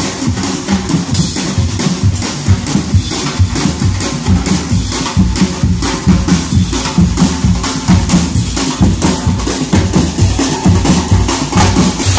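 A street drum ensemble of bass drums and snare-type drums plays a fast, steady dance beat, its deep drum strokes driving the rhythm.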